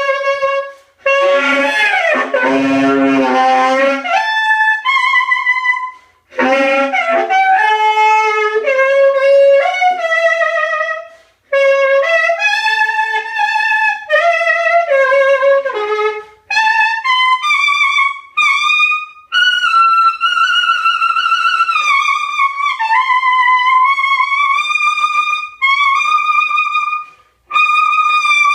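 A solo saxophone playing free-jazz improvised phrases separated by short breaths. About two to four seconds in it gives a harsh, noisy honk. From about halfway through it holds long high notes that bend up and down.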